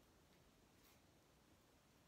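Near silence: room tone, with a faint brief rustle just under a second in.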